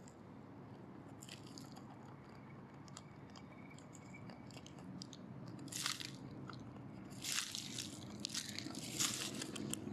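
Dry leaves and loose soil rustling and crackling as a lesser Japanese mole digs and pushes its way through leaf litter. Faint scattered crackles at first, then several louder scratchy rustles in the second half.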